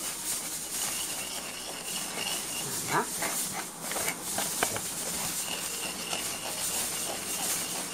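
Spoon rubbing and scraping wet Aleppo pine seed (zgougou) paste through a fine mesh sieve, a steady raspy hiss.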